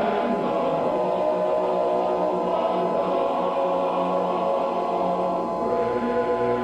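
Choral music: a choir singing slow, held chords, with a new chord coming in at the very start.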